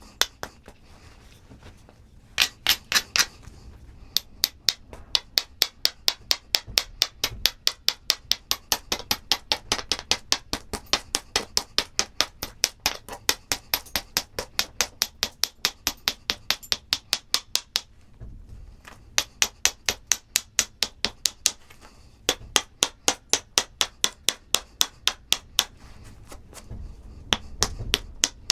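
Stone-on-stone clicking while flintknapping a stone point: quick, even strokes at about three a second, working the edge in runs with short breaks between them.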